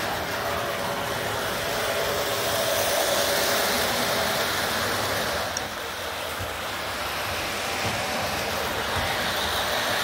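Electric model train running along its track close by: a steady whirring hiss from the wheels and motor.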